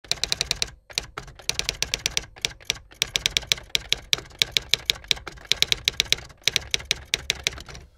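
Typewriter sound effect: rapid key strikes, about eight to ten a second, in runs broken by short pauses, keeping time with title text typing out letter by letter.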